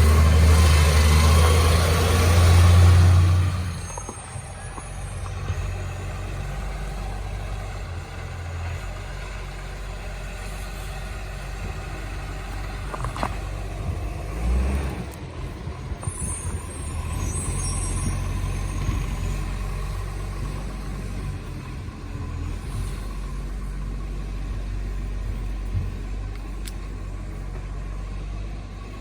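Rubbish truck's diesel engine with a leaking exhaust, running loud for the first few seconds and then dropping to a steady low rumble. Short hisses of air about four seconds in and again around sixteen seconds.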